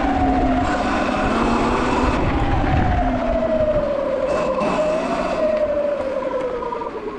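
Sur Ron X electric dirt bike's motor whining under way, with tyre and wind noise on a dirt trail. The whine's pitch drops in the last couple of seconds as the bike slows.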